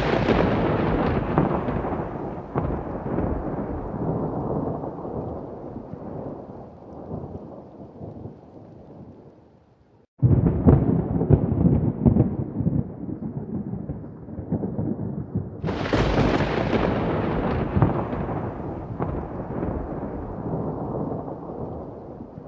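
Thunder: a clap fades into a long rolling rumble, a second crash breaks in suddenly about ten seconds in, and a third sharp crack comes about sixteen seconds in, rumbling away toward the end.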